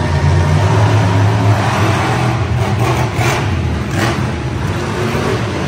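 Monster truck engine running loud and steady, with a deep low rumble.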